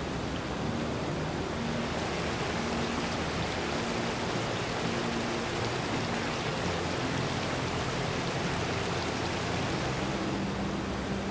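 Small forest creek rushing and splashing steadily over rocks and little cascades.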